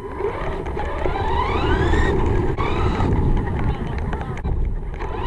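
RC car's electric motor whining up in pitch as it drives, twice in quick succession, over a steady low rumble.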